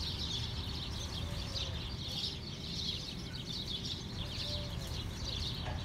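Many small birds chirping rapidly and continuously over a steady low background rumble.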